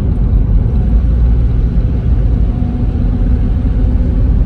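Steady in-cabin road noise from a moving car: low engine and tyre rumble at cruising speed.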